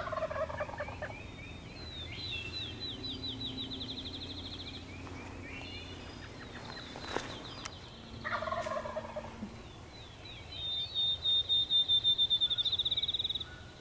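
Wild turkey gobbler gobbling twice, once at the start and again about eight seconds in. A songbird's fast, high trill sounds twice between and after, the second trill near the end being the loudest.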